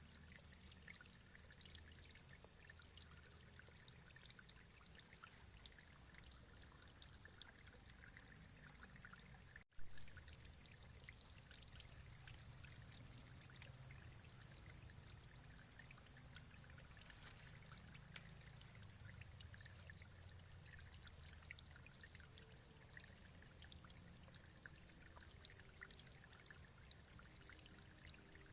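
Faint, steady running water, like a small stream pouring and trickling, with a brief dropout and click about ten seconds in.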